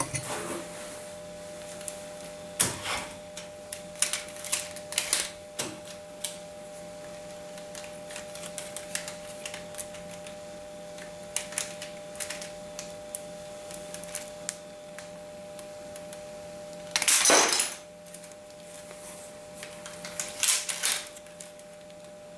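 Plastic clicking and clattering from a hand-built Lego AK-74u model being handled and its mechanism worked, in scattered sharp clicks, with one longer, louder rasp about three-quarters of the way through and a faint steady hum underneath.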